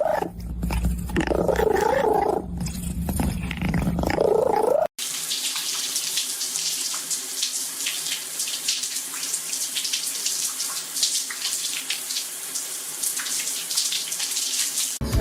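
A cat meowing, about three drawn-out calls in the first few seconds. Then it cuts suddenly to steady running water for the rest.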